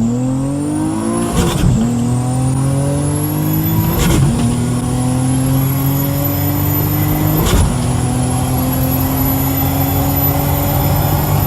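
Rear-mount turbo Infiniti G35's VQ35DE V6 accelerating hard through the gears, its pitch climbing in each gear and dropping at upshifts about 1.5, 4 and 7.5 seconds in. A high turbo whine rises alongside the engine in each gear.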